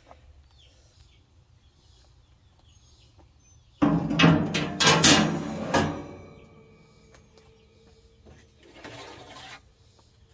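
Metal cooking grate set down into a steel smoker cook chamber: a sudden clatter of metal-on-metal clanks for about two seconds, starting about four seconds in and leaving a ringing tone, then a short scrape near the end. Birds chirp faintly in the background.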